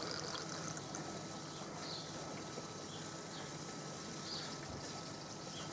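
Quiet outdoor pond ambience: a steady faint hiss of running water with a few faint, short bird chirps.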